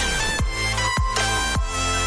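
Background electronic music with a steady beat and deep bass hits that sweep down in pitch about every half second, over sustained synth tones.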